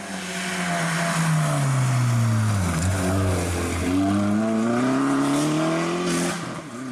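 Opel Corsa OPC rally car's turbocharged engine at full volume. The engine note falls steadily for about three seconds, stays low for a moment, then climbs again over the next few seconds, with a constant rush of noise underneath.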